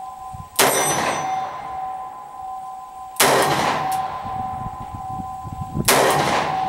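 Taurus Model 415 snub-nosed revolver in .41 Magnum with a ported 2.5-inch barrel, fired three times about two and a half seconds apart. Each shot is a very loud sharp crack followed by a short echo.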